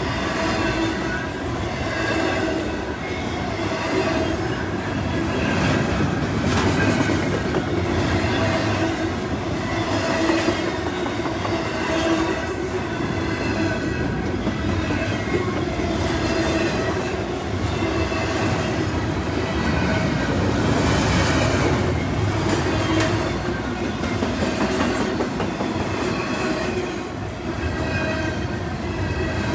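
CSX double-stack intermodal train rolling past, its well cars' wheels clicking irregularly over the rail joints under a continuous rumble. A faint steady whining tone runs underneath.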